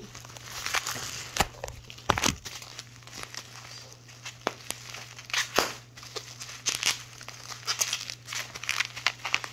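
Toy packaging crinkling and tearing with irregular rustles and sharp clicks as a toy is worked out of its wrapping by hand, over a faint steady low hum.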